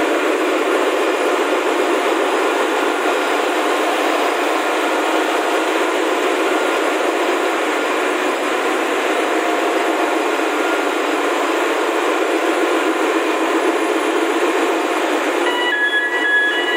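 Steady, loud machinery noise of a ship's engine room, coming from other running plant while the main engine stands stopped for maintenance. About a second before the end, a steady high whine of several tones joins in.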